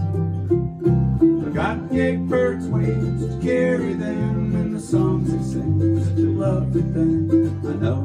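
Instrumental break of a folk song played live on acoustic guitar, mandolin and electric bass, with plucked melody notes over a steady bass line.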